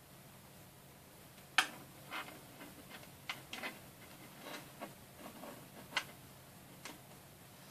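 Irregular small plastic clicks and taps of Lego Technic pieces being handled and pushed onto an axle, the sharpest click about one and a half seconds in.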